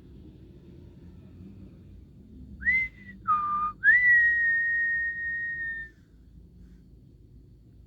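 A person whistling three notes: a short high note, a lower one, then a long high note held for about two seconds that sags slightly in pitch.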